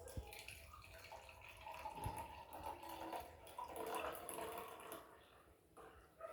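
Water being poured into a cooking vessel: faint trickling and splashing that fades out about five seconds in.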